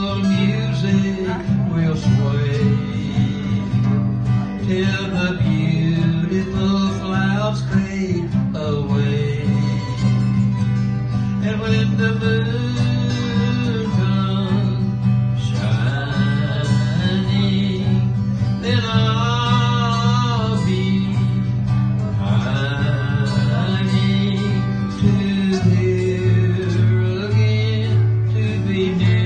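Live country waltz: acoustic guitar strummed with a steady bass line, and a man's voice singing a slow, wavering melody over it.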